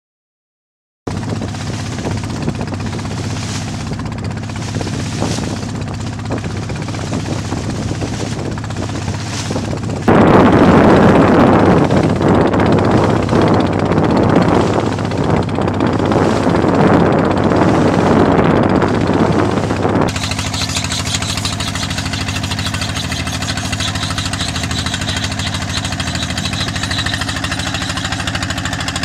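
A fishing boat's engine running steadily, a low drone with a constant pitch that starts about a second in. For about ten seconds in the middle it is louder and noisier, then it settles back to a steady drone.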